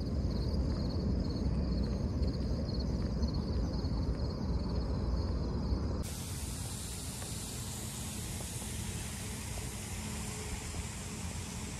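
Wind rumbling on the microphone while walking outdoors, with a faint pulsing high buzz behind it. About halfway through it changes abruptly to a steady hiss.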